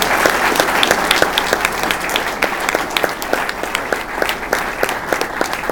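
Audience applauding, many hands clapping at once in a dense, steady round.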